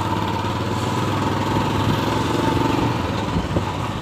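Royal Enfield Classic 350's single-cylinder engine running steadily, its exhaust giving a fast, even beat.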